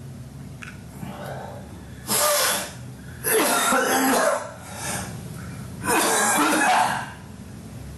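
A man coughing hard in three loud fits, each lasting up to about a second, with a weaker cough between the last two.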